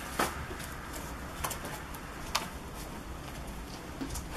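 Goats browsing a Christmas tree: about four sharp snaps of twigs and branches breaking, the first the loudest.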